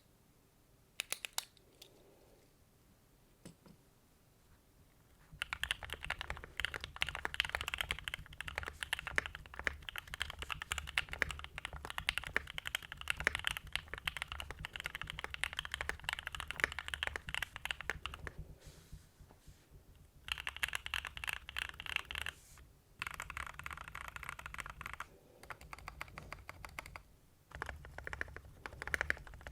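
Typing on a mechanical keyboard with linear switches: a few single keystrokes about a second in, then a long run of fast continuous typing from about five seconds in, and after a brief pause shorter bursts of typing with gaps between them.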